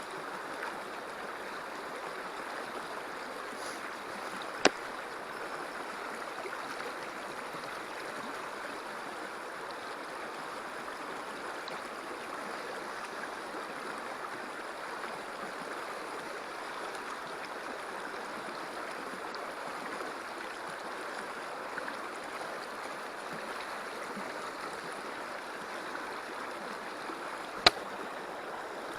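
Steady rush of flowing river water, with two sharp clicks, one about five seconds in and another near the end.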